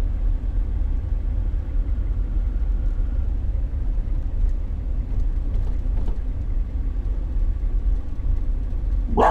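Steady low rumble of a vehicle driving on a wet road, heard from inside the cab. A dog gives a sudden loud bark right at the end.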